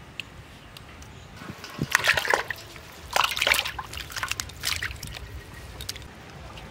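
Water splashing and sloshing in a steel bowl as chunks of cut silver carp are tipped in from a bamboo basket and stirred by hand. It comes in several bursts, loudest about two and three seconds in.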